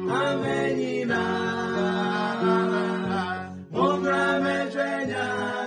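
A small group of male and female voices singing a Twi Pentecostal hymn in harmony, with a brief breath break about three and a half seconds in before the next line.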